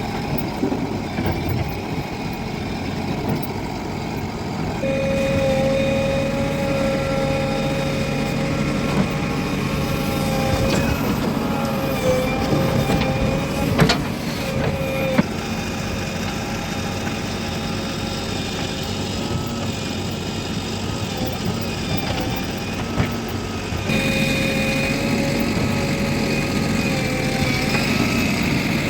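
Diesel engine of a JCB 3DX backhoe loader running under load while it works, with a steady high whine that comes in about five seconds in, fades around fifteen seconds and returns near the end. A single sharp knock about fourteen seconds in.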